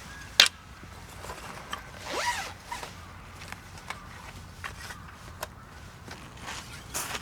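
A zipper pulled once, about two seconds in, among scattered sharp clicks and knocks of gear being handled.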